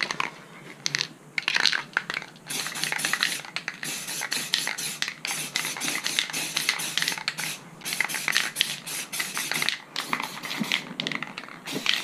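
Aerosol spray paint can hissing in many short bursts, spraying a camouflage pattern through a mesh net.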